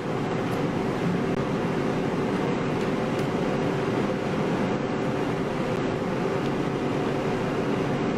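Steady machine hum with an even hiss underneath, unchanging throughout.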